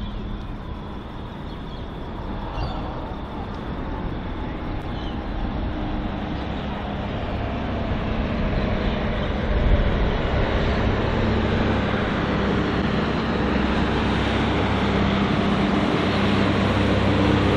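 NSW TrainLink Hunter diesel railcar approaching and pulling into the station, getting steadily louder. Its diesel engine hum comes in plainly about two-thirds of the way through, with a brief thump a little after halfway.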